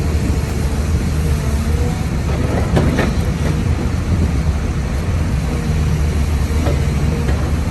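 Diesel engine of a 2003 Kobelco SK210LC excavator running steadily with a low hum, and a short cluster of knocks about three seconds in.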